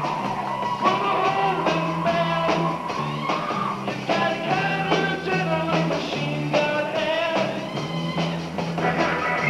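Live rock band playing a song, with electric guitar, a steady bass line and a male singer singing into the microphone.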